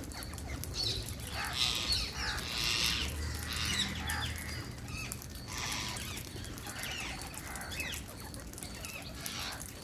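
Wild Indian parrots calling: a string of short shrill chirps and harsher screeches, coming in clusters about every second or so.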